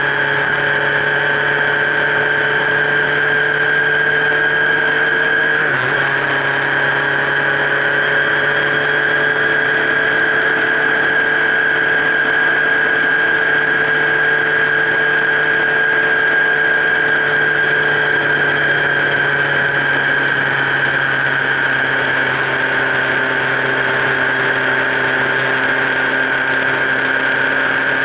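A vehicle running steadily, heard from a camera mounted on its frame: a constant high whine over a low hum, with middle tones that slowly drift in pitch. There is a brief jolt about six seconds in.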